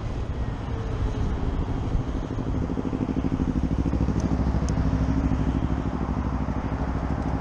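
Motorcycle engine running at low speed as the bike rolls slowly through traffic, with wind and road noise. A few seconds in, the engine note settles into a steady, even low pulse and grows a little louder.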